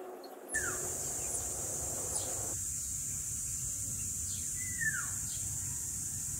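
Birds calling over a steady high-pitched insect drone: a few short chirps, a brief falling whistle about half a second in, and a longer falling call about five seconds in. A low steady rumble runs underneath.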